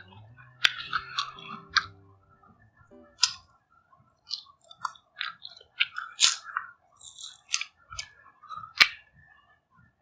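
Close-up eating sounds of tropical fruit: irregular sharp crunches and chewing clicks. Light background music plays under the first three seconds or so, then stops.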